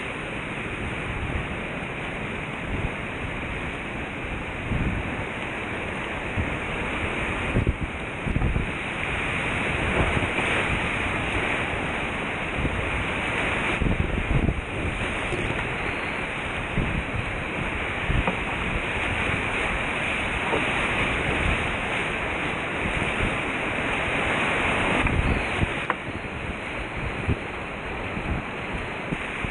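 Rushing whitewater of a creek rapid heard from inside a kayak, steady and loud, with irregular splashes of paddle strokes and wind rumbling on the microphone.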